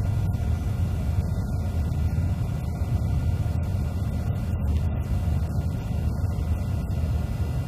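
Steady low rumble of a Coast Guard HU-25 Guardian jet in flight, heard inside the cockpit: engine and airflow noise, with a few faint steady tones above it.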